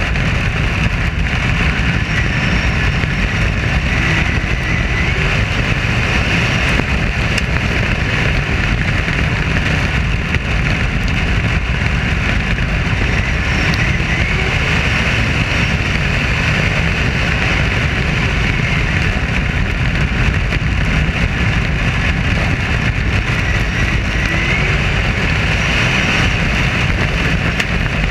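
Dirt-track modified race car running at racing speed, its V8 engine loud and steady as heard from a roof-mounted camera, with wind rushing over the microphone.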